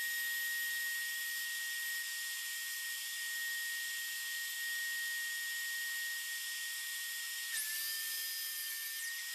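A dust-collection vacuum runs with a steady hiss and a thin high whine. Near the end a DeWalt sliding compound miter saw spins up, cuts through stacked plywood strips, pulling the whine down slightly under load, and winds down.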